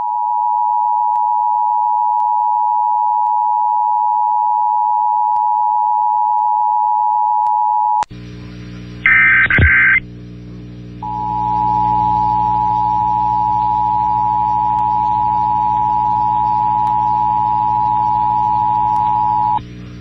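Emergency Alert System attention tone broadcast over the radio, a steady tone held for about eight seconds and then cut off. After that comes a low hum, a short loud burst about a second later, and then a second steady attention tone of about eight and a half seconds that stops just before the test announcement.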